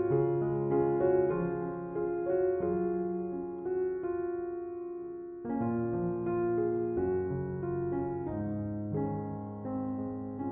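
Soft background piano music, slow sustained notes.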